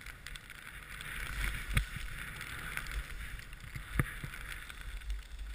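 Snowboard hissing and swishing through deep powder snow, with a low wind rumble on the microphone. Two sharp knocks cut through, about two seconds in and again about four seconds in.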